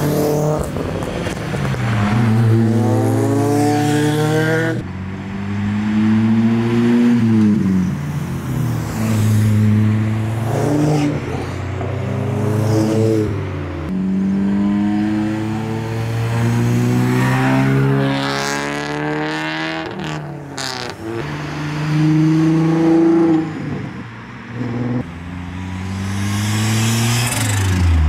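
Modified tuner cars pulling away one after another, their engines revving up through the gears: the pitch climbs, drops at each shift or as the car passes, then climbs again with the next car.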